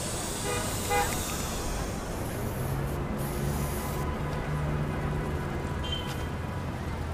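Aerosol spray-paint can hissing, fading out over the first few seconds, with a short clink about a second in. Low bass notes come in underneath after that.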